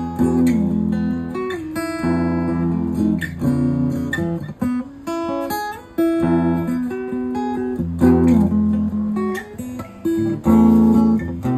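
Donner HUSH silent guitar played: picked chords and quick single-note runs, with some notes sliding in pitch.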